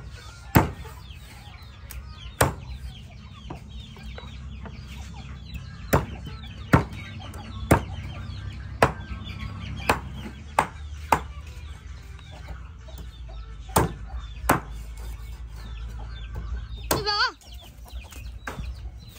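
Chickens clucking and chirping in the background, with about a dozen sharp knocks of kitchen work at irregular intervals, and a louder call near the end.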